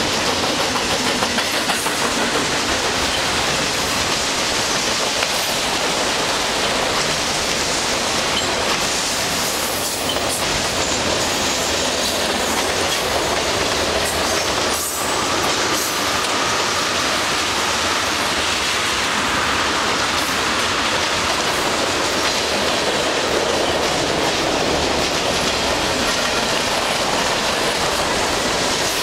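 A long freight train's cars rolling past close by: a loud, steady rumble and rattle of steel wheels on the rails that keeps on without a break as car after car goes by.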